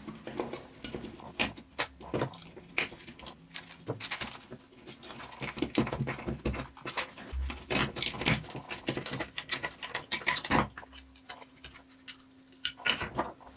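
Irregular clicks, knocks and plastic scrapes of hands taking apart an old mobile phone's battery pack to get the cells out.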